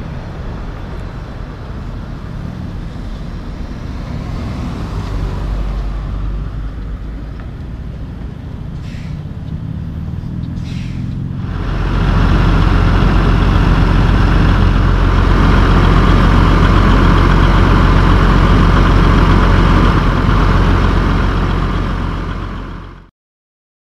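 Peterbilt semi-truck diesel engines. First a flatbed rig's engine is heard at a distance with road noise. About halfway through, after a cut, a much louder diesel runs steadily close by, then fades out just before the end.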